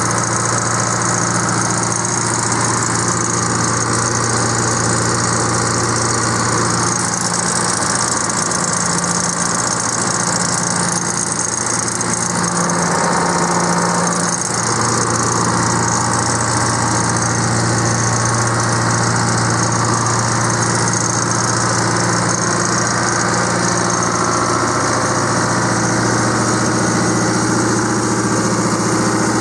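Caterpillar 3304 DI, a four-cylinder direct-injection diesel, running steadily on a generator set.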